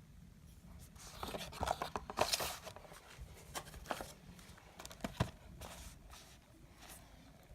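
Hands handling packaging: rustling and crinkling strongest between about one and three seconds in, then a few light knocks and clicks.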